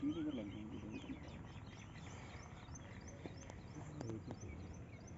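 Small birds chirping in a quick run of short, high calls over the first couple of seconds, with a faint low voice at the start and again around four seconds in.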